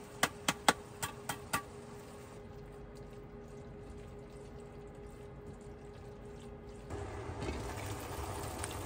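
About six sharp clicks from a seasoning shaker being shaken over a skillet in the first second and a half, then a quiet steady background with a faint hum. About seven seconds in, the skillet of ground beef, beans and jalapeños simmering on the stove comes up louder.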